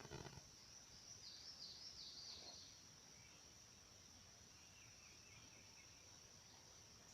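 Faint garden ambience: a steady high-pitched insect drone, with a bird giving a few quick falling chirps about a second in and then a fainter run of short notes.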